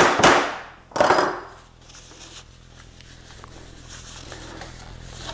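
Hammer tapping the mandrel pin of a reverse pop rivet home through sheet-metal flashing into wood: two last sharp metal taps in the first second, setting the rivet, then only faint low room noise.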